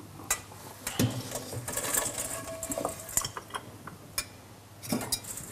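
Metal pots, pans and utensils knocking and clinking in scattered strikes, the sharpest about a second in, as fried taro is drained.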